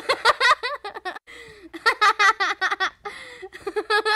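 A person laughing hard in three fits of rapid, high-pitched giggles.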